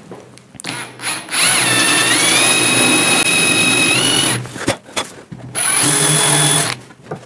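Cordless drill boring a wide hole through an MDF template: a short blip of the trigger, then a run of about three seconds with the motor whine rising as it comes up to speed, and a second shorter run near the end.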